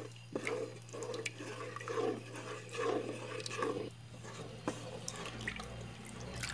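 Wooden spoon stirring a thickening milk-and-cornstarch white sauce in a pan, the sauce swishing about twice a second with a few light knocks of the spoon on the pan. The stirring gets quieter about four seconds in.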